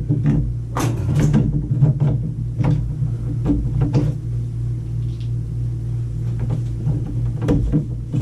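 Scattered sharp knocks and clatter, about a dozen, thickest in the first half, over a steady low hum.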